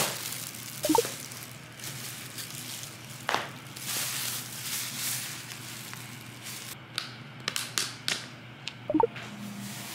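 Thin plastic takeout bag rustling and crinkling as plastic soup containers are unpacked and their lids handled, with a few sharp clicks and two short squeaks, one about a second in and one near the end.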